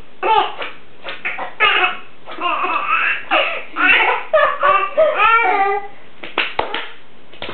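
Baby laughing in repeated high-pitched bursts of giggles and belly laughs, with a few short sharp clicks near the end.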